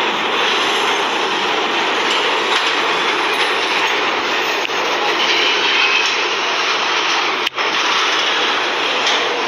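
Subway train running, a steady loud rush of wheel and track noise, with a brief dropout about seven and a half seconds in.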